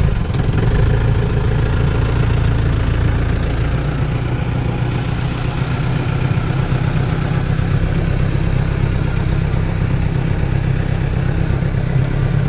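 Off-road 4x4 vehicle's engine running steadily, a continuous low rumble.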